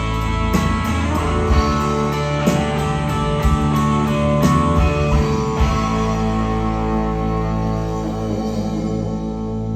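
Band playing the closing bars of a rock song live, guitars over a steady beat. About halfway through, the beat stops and a final guitar chord rings out.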